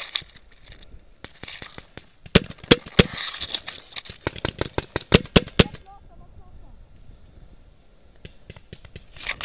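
Paintball marker firing a rapid string of sharp shots, about a dozen in two quick bursts, stopping a little past halfway.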